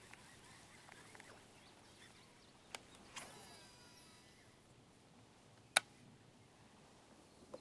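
Faint outdoor background broken by a few sharp clicks, the loudest just before six seconds in, and a brief whirr a little after three seconds.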